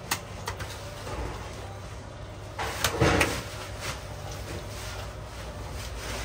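Kitchen handling clatter over a steady low hum: two sharp knocks at the start, then a louder scraping clatter about three seconds in.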